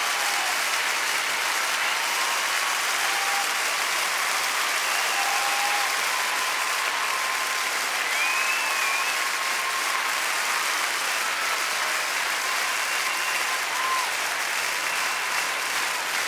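Steady, continuous applause from a large audience.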